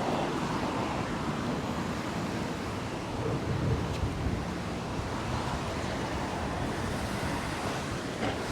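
Gusty wind rushing over the microphone ahead of a thunderstorm, a steady noise that swells a little about three seconds in.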